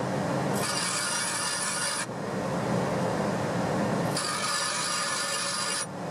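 Bench grinder running, with a small steel tool bit pressed against the wheel twice: grinding from about half a second to two seconds in, and again from about four seconds to nearly six, with only the grinder's motor hum in the pauses between.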